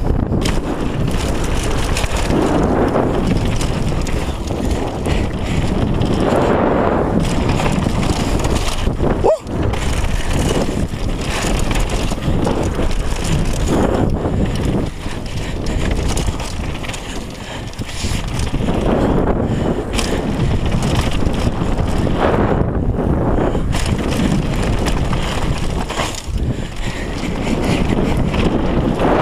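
Wind buffeting a GoPro action camera's microphone during a fast downhill mountain-bike descent, mixed with the tyres rolling over a dirt and gravel trail. The sound briefly cuts out about nine seconds in.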